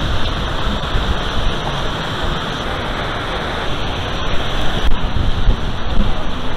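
Steady rushing of water from an artificial waterfall.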